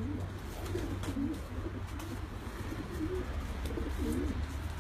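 Domestic racing pigeons cooing, a series of low, warbling coos one after another.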